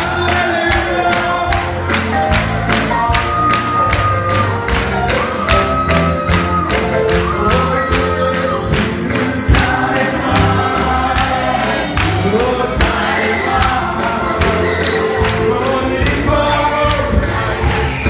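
Live gospel praise music: a group of voices singing together over a band with a bass line and a steady percussive beat.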